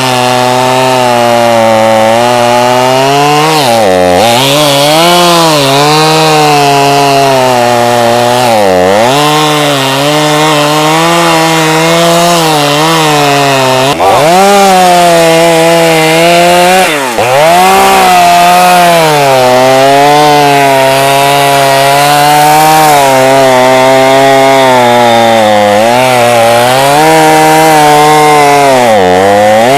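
Chainsaw running at high revs while cutting wood, its pitch dipping sharply and recovering several times, around four, nine and seventeen seconds in and near the end.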